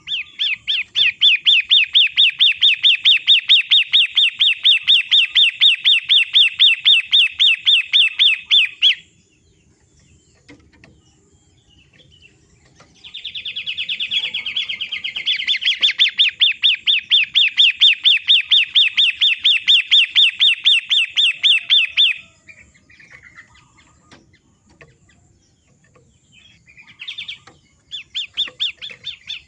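Songbird trilling: a fast run of repeated rising notes, about five a second, in two long bouts of roughly nine seconds each with a pause between, and a short bout starting near the end. A recorded bird-song training track played to get a long-tailed shrike singing.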